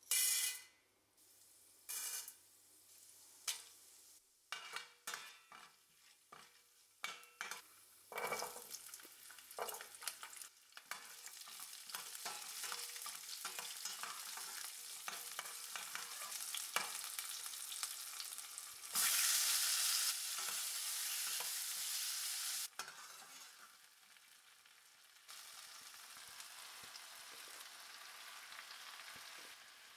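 Dry lentils clattering into hot oil in a stainless steel pan, a few sharp rattles at the start, then lentils, dried red chillies, shallots and garlic frying and being stirred. The steady sizzle builds from about ten seconds in, is loudest for a few seconds past the middle, and drops back near the end.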